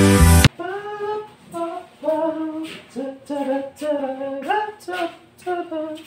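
Electronic music ends with a rising sweep in the first half-second, then a high voice sings unaccompanied in short held notes, each broken off after a fraction of a second.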